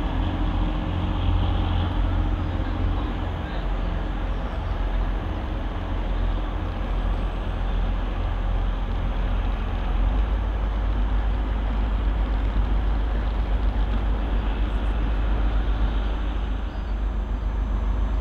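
Class 185 diesel multiple unit's Cummins diesel engines running as the train pulls away, a steady low drone.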